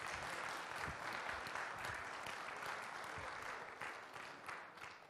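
Congregation applauding, a steady patter of many hands clapping that dies away near the end.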